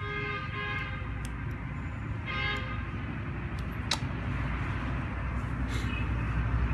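Short horn honks, two stretches near the start and about two seconds in, over a steady low rumble like distant traffic. A couple of sharp clicks about a second in and near the middle.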